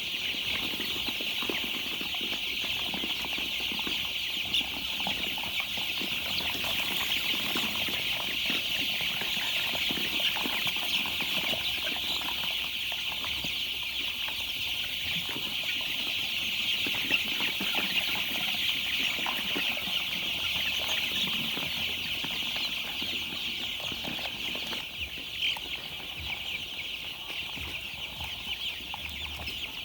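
Many young chicks cheeping at once: a steady, dense, high-pitched chorus of peeps.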